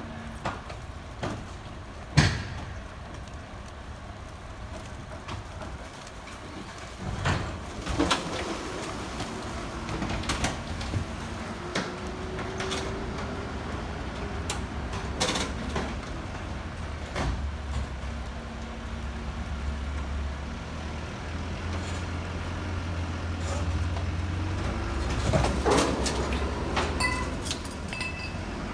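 Mobile crane's diesel engine running under load while it hoists a wrecked large truck, the low drone growing stronger in the second half. Scattered sharp metallic clanks and knocks come from the lifting, with a slow rising-and-falling squeal twice.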